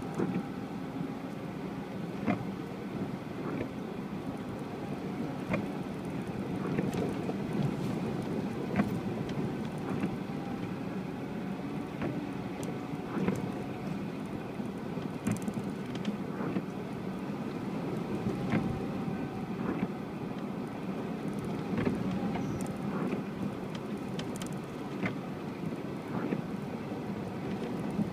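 UAZ Patriot off-roader engine and drivetrain running steadily while driving on rough ground, with scattered knocks and clicks every second or two.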